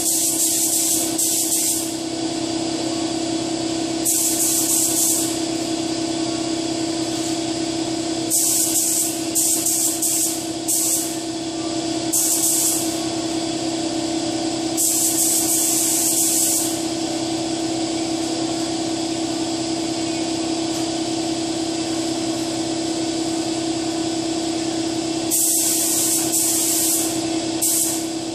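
Gravity-feed air spray gun spraying silver paint in short passes: hissing bursts of one to two seconds each, several close together, then a long pause before a last pair near the end. A steady low hum runs underneath.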